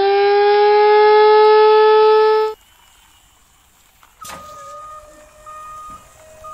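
Wind-up siren sound, its pitch still rising slowly to a steady wail, then cutting off suddenly about two and a half seconds in.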